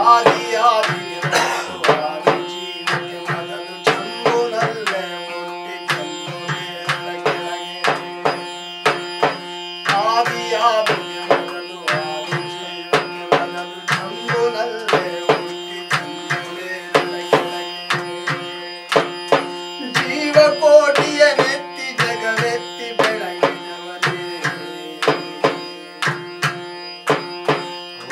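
Folk music: a large frame drum struck in a steady beat of about two strokes a second over the continuous drone of a long-necked, gourd-bodied string instrument, with a melody line rising and falling over it at times.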